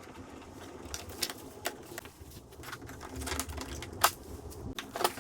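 Scattered clicks and clacks of hand tools and plastic parts being handled while a car door is taken apart, with a sharper knock about four seconds in and another near the end.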